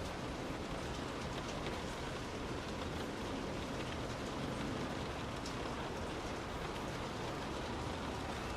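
Steady rain falling, heard from indoors: an even hiss with faint scattered drop ticks.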